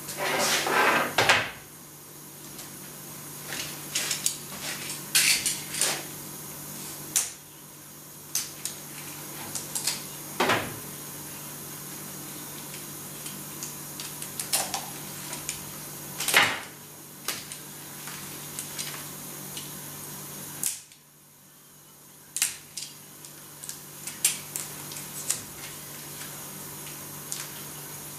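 Handling noises on a steel workbench: a coil of heavy rubber cable being picked up, moved and set down, with scattered knocks, clicks and rustles, the loudest clatter in the first two seconds.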